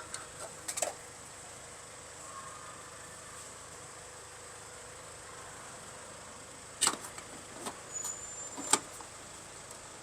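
Several sharp knocks and clicks over a steady faint hum. There is a short group about a second in, then a cluster in the second half, with the loudest knock near the end.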